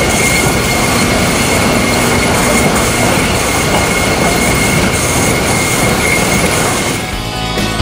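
Sawmill planer and its chain-conveyor infeed running: a loud, dense clatter and rumble of machinery and moving lumber, with a steady high whine.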